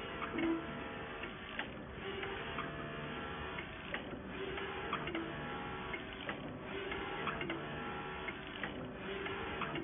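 6090 UV flatbed printer printing, its printhead carriage shuttling back and forth across the bed in repeated passes. Its drive hums on each pass, with clicks and a brief dip about every two and a half seconds as the carriage reverses.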